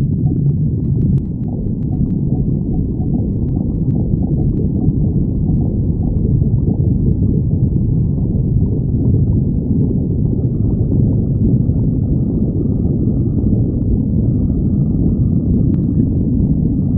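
A person's stomach growling and gurgling in a continuous low rumble that does not pause.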